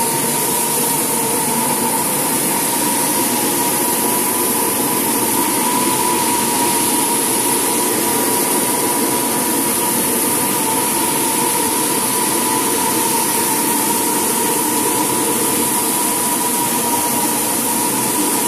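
Parquet floor-sanding machines and industrial dust-extraction vacuums running together: a loud, steady whine over a constant hiss.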